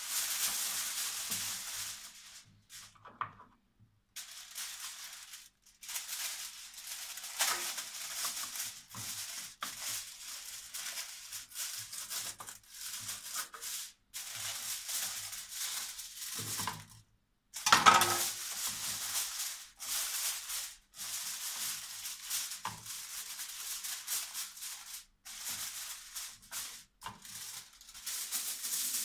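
Aluminium foil crinkling and rustling as it is pressed and folded over the top of a baking dish, in stop-start bursts with short pauses; the loudest crackle comes about 18 seconds in.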